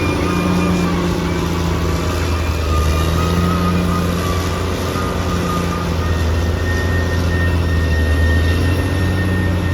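Caterpillar D6R XL bulldozer's diesel engine running steadily, with a thin high whine above it that shifts higher about six seconds in.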